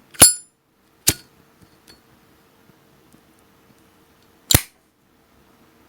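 Three sharp metallic clacks of a windproof lighter's hinged lid being snapped, the first with a brief high ring; the second comes about a second after the first, and the third a few seconds later.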